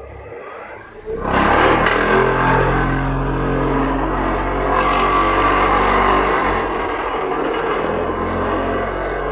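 Hydraulic vibratory pile driver running, coming in suddenly and loud about a second in, then a steady droning hum with a rough mechanical rattle.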